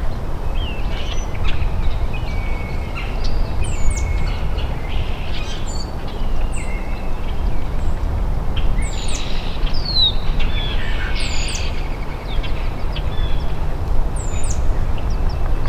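Several wild birds chirping and calling in short whistled notes and quick high hooked chips, scattered throughout, over a steady low outdoor rumble.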